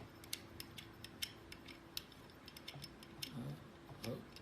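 Faint, irregular small metallic clicks as a screw is turned out of a doorknob lock assembly.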